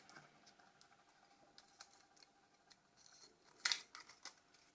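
Faint ticks and clicks of small plastic phone parts being handled and worked loose from a Nokia C3-01's body shell, with a louder short scrape-click about three and a half seconds in.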